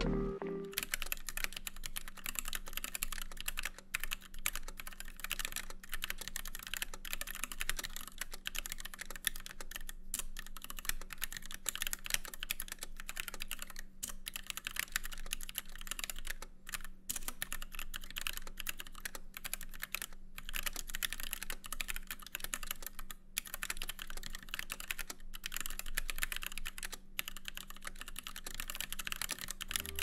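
Typing on a Keebio Sinc split mechanical keyboard fitted with Gateron switches in a 3D-printed case: a steady run of key clicks and clacks, with short pauses every few seconds.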